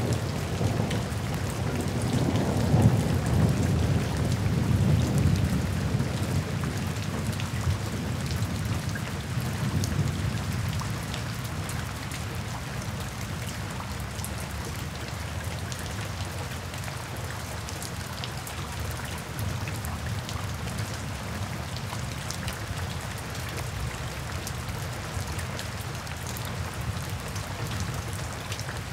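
Steady rain falling, with a low rumble of thunder that swells a few seconds in and dies away by about ten seconds, leaving only the rain.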